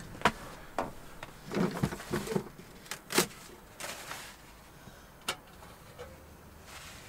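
Knocks and clatters of a cupboard being opened and plates being taken out: a string of sharp knocks, the loudest about three seconds in.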